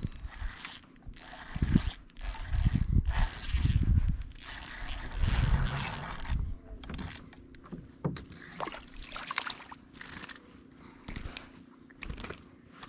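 Spinning reel being cranked to retrieve the line, its gears whirring and clicking, mixed with low knocks from handling the rod and kayak. It is busiest in the first half, then thins to scattered clicks.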